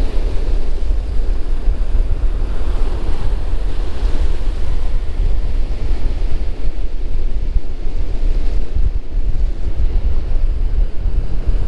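Wind buffeting the microphone, a heavy low rumble, over the steady wash of breaking ocean surf.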